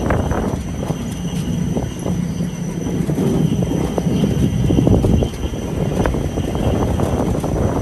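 CoasterKart powered mountain coaster cart running along its metal track: a loud, continuous rumble of the wheels with many short clicks and rattles.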